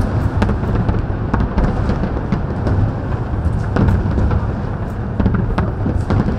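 Aerial fireworks shells bursting in quick succession: a continuous rumble of booms with sharp cracks scattered irregularly through it.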